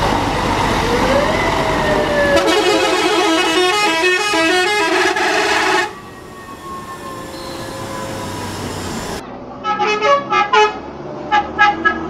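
Telolet multi-tone musical horns on passing coaches. First comes a stepping melody of horn notes lasting about three seconds, then, after a quieter stretch, two quick runs of short separate toots near the end, with bus traffic noise underneath.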